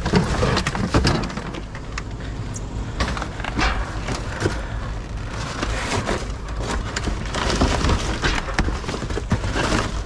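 Trash being shifted and rummaged through in a dumpster: irregular clatter, knocks and rustling as junk is moved about.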